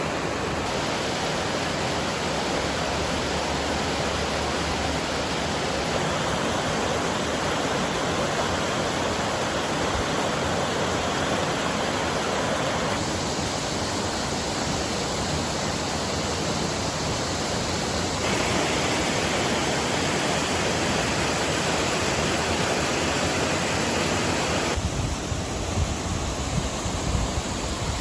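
Steady rushing of a waterfall, a loud even roar of falling water, changing abruptly in tone several times as the shots change. Near the end, irregular low buffeting joins it.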